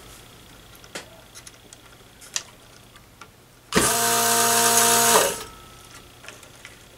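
Vacuum desoldering tool's pump motor buzzing steadily for about a second and a half, starting and stopping sharply a little under four seconds in, sucking solder off a resistor lead. A few faint clicks come before it, over a low steady hum.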